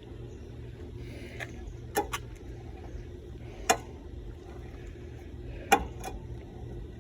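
Car jack being cranked down, with a few sharp metallic clinks from the jack and its handle over a steady low hum.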